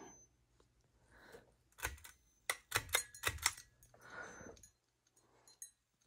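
Ceiling fan running on low speed with a faint steady motor hum, with a quick irregular run of light clicks and taps about two to three and a half seconds in.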